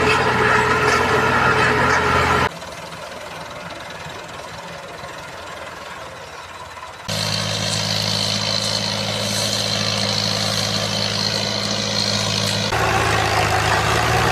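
Combine harvester's heavy engine running steadily, in several clips joined by abrupt cuts. About two seconds in it drops to a quieter, hissing background for a few seconds before a steady engine hum comes back loud.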